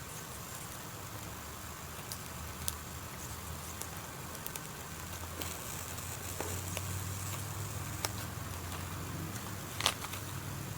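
Small wood campfire burning and crackling, with a few sharp pops scattered through it over a low steady rumble.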